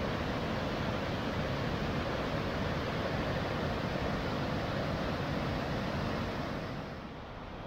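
Steady rush of a rain-swollen mountain stream pouring over cascades. The level drops somewhat near the end.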